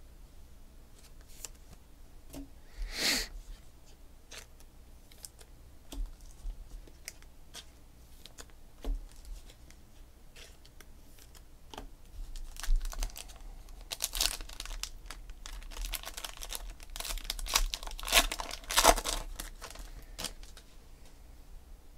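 Trading-card pack wrapper being torn open and crinkled by hand, a dense crackling that begins about halfway through and is loudest near the end. Before it come a few light clicks and rustles of cards being handled.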